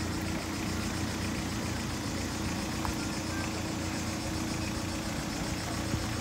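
Renault Kangoo van's engine running at low revs with a steady low hum while it reverses a boat trailer slowly down a slipway.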